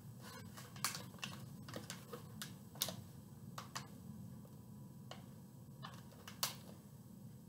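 Clear plastic product packaging being handled and turned over in the hands: irregular crinkles and sharp clicks, with louder snaps about a second in, near three seconds and past six seconds.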